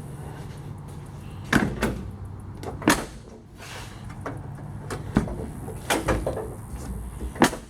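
Chevrolet S10 pickup door latches and handles clacking as a door is opened and shut several times: about six sharp clacks and thumps over a low steady hum. The doors are working on newly installed inside and outside handles and rods.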